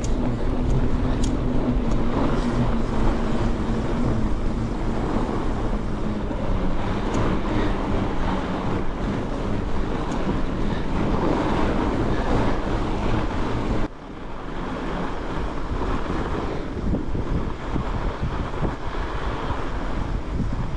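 Wind buffeting the microphone over the rumble of a fat bike rolling along a snowy trail. About two-thirds of the way through, the noise drops suddenly to a quieter, similar rumble.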